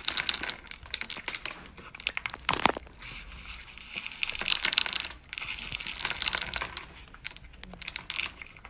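A cat crunching dry kibble from a plastic bowl: rapid crisp crunches and clicks in clusters with short pauses between them.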